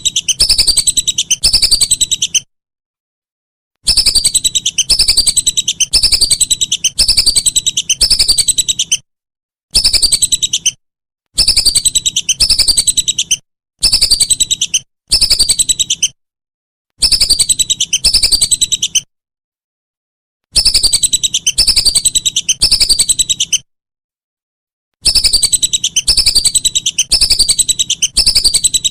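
Looped recording of a bird's call used as training song: bouts of repeated high, quickly trilled phrases, each sliding down in pitch, broken by abrupt silent gaps.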